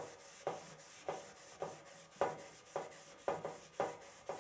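Handheld mineral-abrasive scrubber pad, loaded with polish, rubbing the stainless steel inside of a grill lid in back-and-forth strokes, about two strokes a second, each starting sharply and fading. The pad is scouring rust and grime off the steel.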